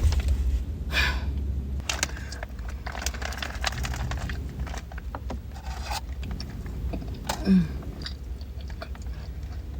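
A person chewing crunchy food with irregular crunches and clicks over a low steady hum. A short hum of the voice comes about seven and a half seconds in.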